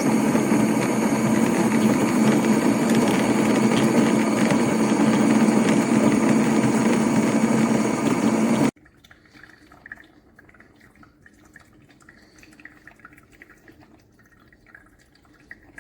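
Gevi drip coffee maker with built-in grinder running: a loud, steady mechanical and water noise for about nine seconds that cuts off suddenly. After it come faint dripping and crackling sounds.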